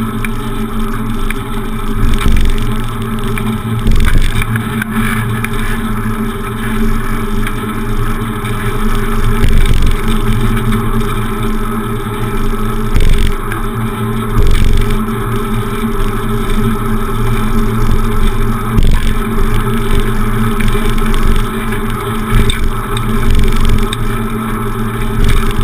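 Rolling noise of a bicycle ride picked up by a handlebar-mounted camera: steady wind and road rumble with a constant drone, and a few low thumps from bumps in the road.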